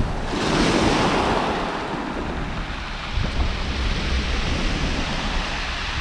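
Sea waves breaking and washing up a shingle beach. One wave swells about half a second in and fades over the next couple of seconds. Wind rumbles on the microphone throughout.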